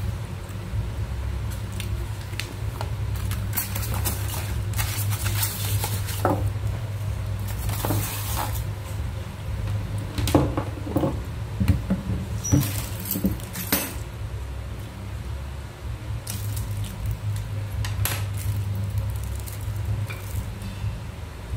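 Hands handling a hot-air gun kit, its paper manual, cord, plastic stand and bagged metal nozzles: scattered rustles, clicks and light clinks, busiest in the middle. A steady low hum runs underneath.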